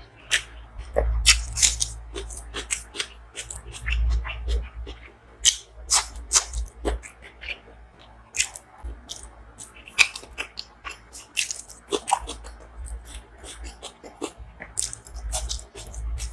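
A person chewing and biting food close to the microphone: irregular wet mouth clicks and smacks, several a second.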